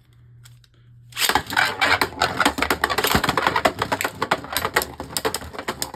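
Beyblade Burst spinning tops clashing in a plastic stadium: after a quiet first second, a dense, rapid run of hard plastic clicks and rattles as the tops strike each other and the stadium.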